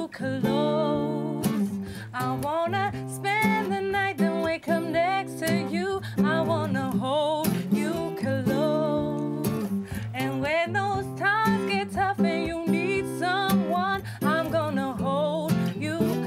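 A love song sung live over strummed acoustic guitar.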